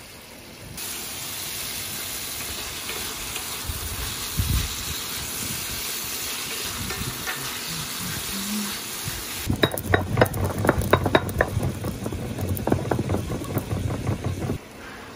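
Shrimp and sliced red peppers sizzling in an enamelled pan while a spatula stirs them. About halfway through, this gives way to a pestle knocking rapidly in a stone mortar, crushing black peppercorns, which stops shortly before the end.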